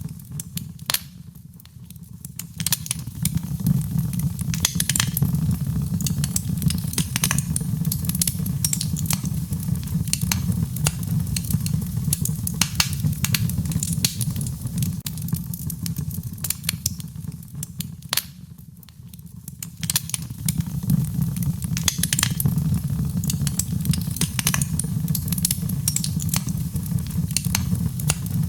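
Wood fire in a fireplace crackling and popping, with many sharp irregular snaps over a steady low rumble. The sound dips twice, about two seconds in and again near the middle.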